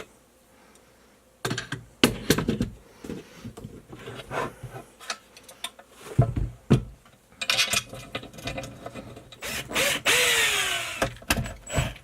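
Hard plastic and metal RC parts clicking and knocking as a rear differential is handled and fitted into a Losi 5ive-T chassis, followed by a small power driver running briefly, its pitch falling as it winds down, about ten seconds in.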